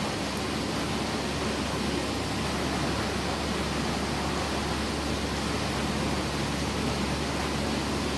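Steady machinery noise: an even hiss over a faint low hum, with no change in pace or level.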